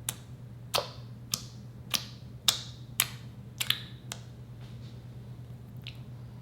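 Slime being pressed and worked, giving a series of sharp clicking pops, about nine of them roughly every half second, stopping about four seconds in.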